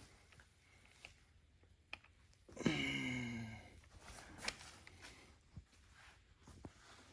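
A person's short wordless vocal sound, about a second long near the middle, falling in pitch and then levelling off. Faint clicks and taps from handling parts come before and after it.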